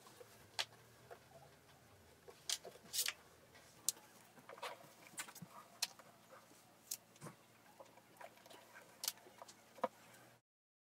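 A flat shoelace being laced by hand through the metal eyelets of white leather Gucci trainers: scattered light clicks and taps with soft rustling, over a faint steady hum. The sound cuts off suddenly near the end.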